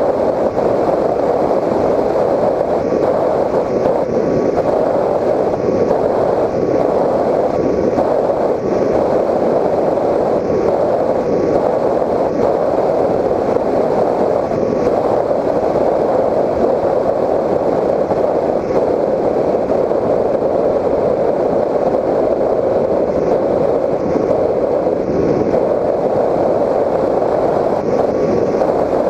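Steady rush of airflow over a Raptor 1600 FPV model plane's onboard camera in flight, mixed with its electric motor and propeller running at cruise power, with a faint steady whine underneath.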